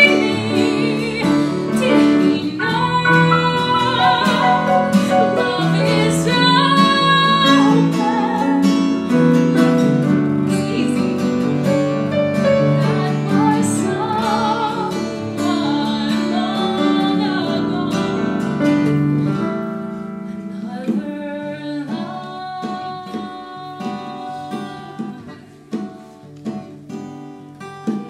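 A female soloist sings in a trained, classical-style voice with wide vibrato over instrumental accompaniment. About two-thirds of the way through, the voice drops out and the accompaniment carries on more softly.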